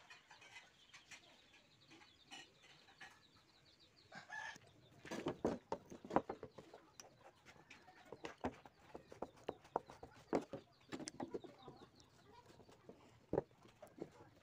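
Chickens clucking faintly, in short sounds at irregular intervals.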